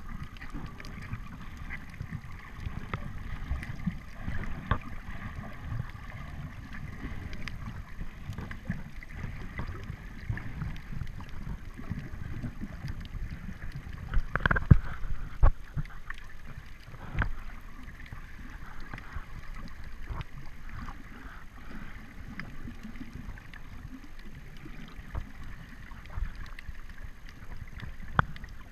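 Underwater sound through a camera's waterproof housing while snorkeling over a reef: a muffled low rumble of moving water with scattered faint clicks. About halfway through comes a louder burst of knocks and rushing water.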